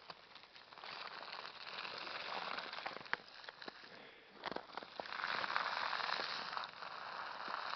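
Hiss and crunch of a weight-pull sled dragged through snow by a small dog, swelling twice, with a few sharp crackles.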